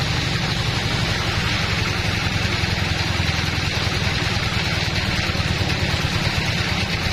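Band sawmill running steadily while its blade cuts lengthwise through a teak log: a continuous machine drone with a dense, even hiss of the cut.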